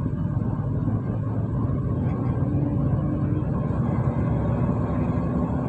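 Diesel engine of a fully loaded lorry running steadily on the move, heard from inside the cab as a low rumble mixed with road noise.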